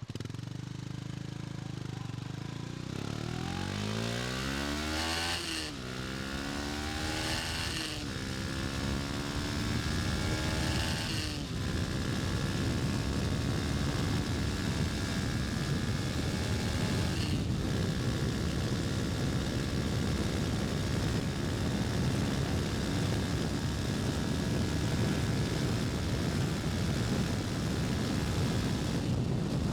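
KTM Duke 250's single-cylinder four-stroke engine accelerating hard through the gears: the revs climb and drop at each upshift, three times in the first eleven seconds or so. After that it runs at a steady speed.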